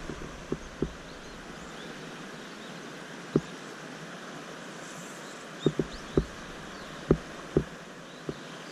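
Steady rushing of a shallow river riffle, with about nine short, dull knocks scattered through it, several clustered in the second half.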